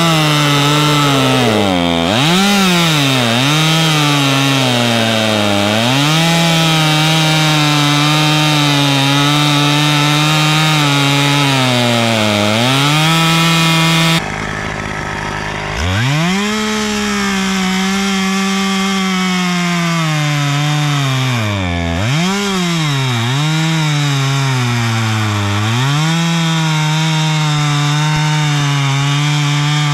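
Husqvarna T540 XP Mark III top-handle two-stroke chainsaw running at high revs while cutting dry ash. Its pitch repeatedly sags and recovers as it is leaned into the cut and bogs down under load. About halfway through, the sound drops off abruptly, and the saw then revs back up and goes on cutting with more dips.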